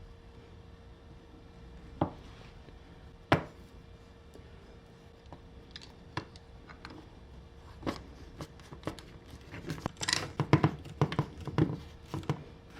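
Handling noises at a workbench: two sharp knocks a little over a second apart, then scattered small clicks that thicken into a quick run of clicks and crinkling rustles near the end, over a faint steady hum.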